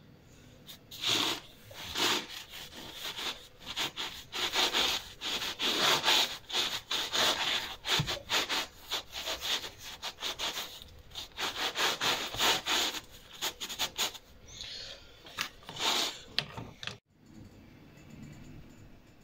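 Knife sawing through a freshly cooked bazlama flatbread on a wooden cutting board: a quick run of rough rasping strokes that thins out near the end.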